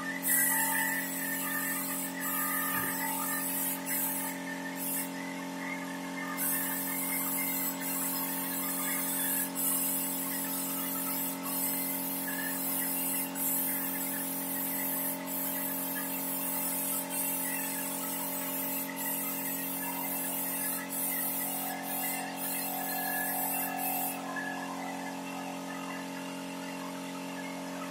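Compressed-air spray gun hissing as it sprays wood polish, in long bursts with short breaks, stopping about four seconds before the end. A steady machine hum runs underneath.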